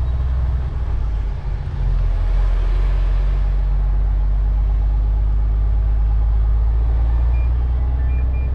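Truck engine running, heard from inside the cab as a steady low rumble that dips briefly about a second and a half in. Near the end, short high beeps start repeating.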